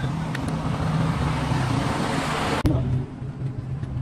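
Diesel engine of a truck-mounted crane running steadily, with a rushing hiss that builds and then stops abruptly about two and a half seconds in, where the engine sound also drops lower.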